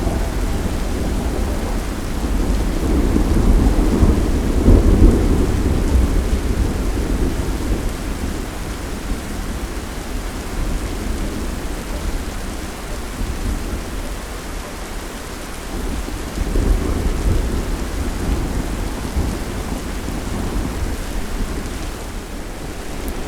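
Thunderstorm: steady rain with long, low rolls of thunder, the loudest swelling about four to six seconds in and another about seventeen seconds in.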